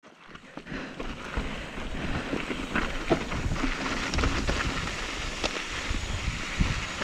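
Footsteps crunching and sliding on loose, gravelly ground, with irregular crunches and clicks, while wind buffets the microphone with a gusty low rumble.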